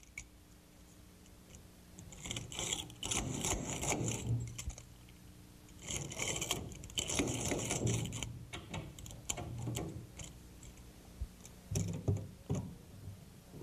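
A long push-type screwdriver driving screws into a brass door-latch faceplate set in a wooden door edge. It comes in two runs of quick metal clicking and scraping, about two and six seconds in, with a few more clicks near the end.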